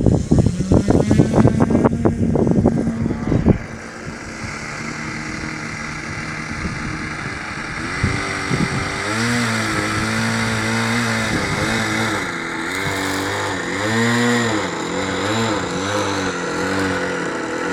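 Wind buffets the microphone for the first few seconds. Then a radio-controlled model airplane's engine drones in flight, its pitch wavering up and down as it manoeuvres.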